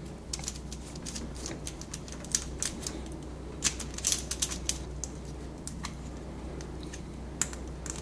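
Irregular light clicks and ticks of a DVI cable plug and an HDMI-to-DVI adapter being worked together by hand as the plug's thumbscrews are turned in. The clicks come thickest in the first half and thin out later.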